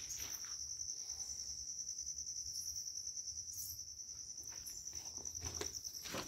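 A high-pitched insect trill, steady and finely pulsing without a break. A few short scuffs of footsteps come in near the end.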